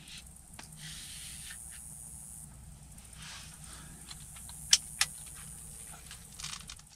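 A crossbow being handled: faint rustling and shuffling, with two sharp clicks about a third of a second apart roughly five seconds in, then more rustling as it is lifted.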